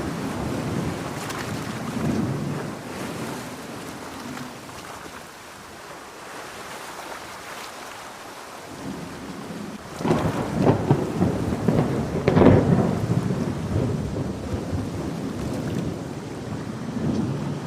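Thunderstorm with steady rain and rolling thunder. A loud, crackling thunderclap breaks about ten seconds in and rumbles away.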